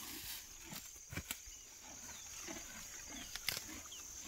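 Quiet rural ambience: a steady high-pitched insect drone, with a few sharp clicks, two close together about a second in and one more near the end.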